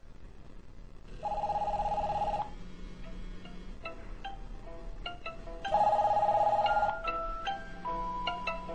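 Mobile phones ringing: a warbling electronic ring sounds for about a second, twice, while a ringtone tune of short, clear notes plays between and after.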